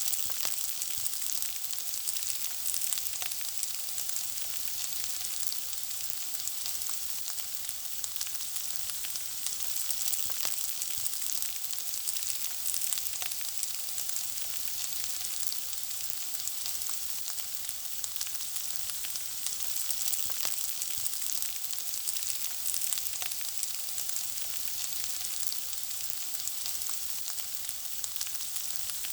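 Food frying in a pan: a steady sizzle with a dense stream of small crackles and pops.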